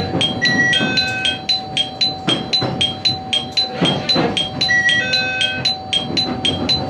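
Electronic chime ringing in a fast, even rhythm of about four to five strikes a second. A few longer chime notes sound over it about a second in and again about five seconds in, with a steady tone underneath.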